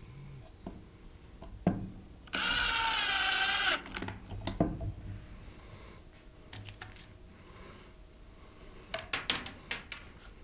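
Cordless impact driver runs once for about a second and a half, driving a small screw through a door hinge into plywood. Sharp clicks and knocks of handling come before and after it, with a quick run of clicks near the end.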